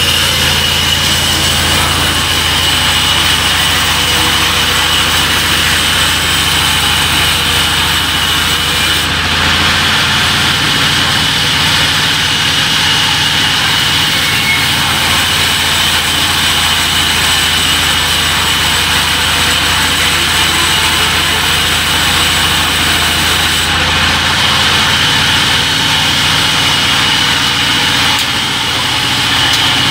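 Large log band saw running steadily: a low machine hum under a constant high whine. The high hiss over it drops away about nine seconds in and comes back near 24 seconds.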